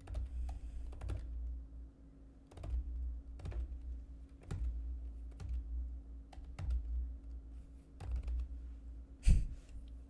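Typing on a computer keyboard in irregular bursts of keystrokes, over a low steady hum. A heavier thump about nine seconds in is the loudest sound.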